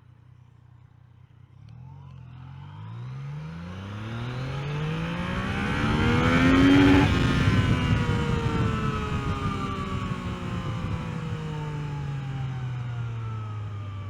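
Yamaha XSR900's three-cylinder engine accelerating hard, its pitch climbing for about five seconds to a loud peak. It then drops slowly as the revs fall away.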